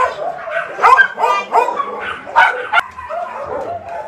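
A dog whining and yipping in a run of short calls that bend up and down in pitch, quieter near the end.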